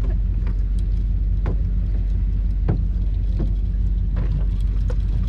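Boat's outboard motor idling steadily, running on only one cylinder, with a few sharp knocks from boots stepping on the wooden boat.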